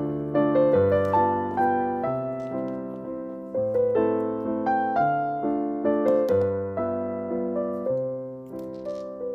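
Background piano music: a gentle melody of struck notes that fade, over held bass notes.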